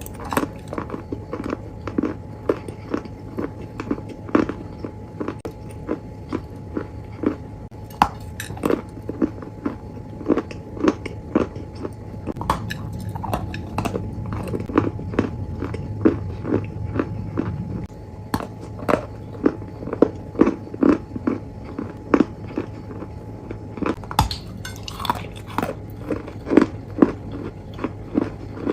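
Close-miked crunchy chewing and biting: a steady run of crisp crunches, about two or three a second, over a steady low hum.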